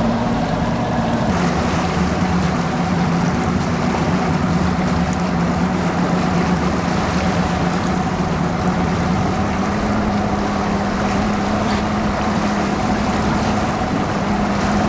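Boat's outboard motor running underway over a steady rush of water; the engine note drops about a second in and climbs slightly again later on.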